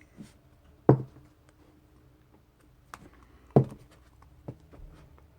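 A few sharp knocks and taps, the two loudest about one second in and past the middle, from a paperback graphic novel being handled.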